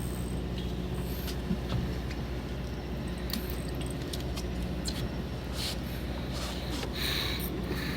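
A fishing boat's machinery running steadily with a low hum, with scattered light clicks and clatters of fishing tackle on deck.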